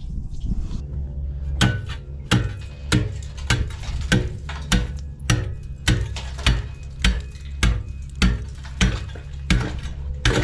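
A steady series of sharp knocks, about one every 0.6 s, over a low steady hum. The knocks begin about a second and a half in.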